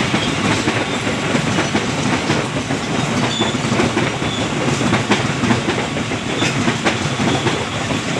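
Passenger train carriages rolling past close by: a steady, loud rumble of steel wheels on rail, with repeated clicks as the wheels run over the rail joints.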